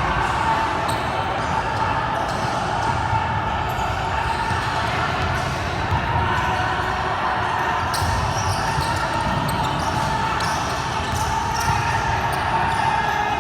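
A basketball bouncing on the court during play, with a steady background of chatter.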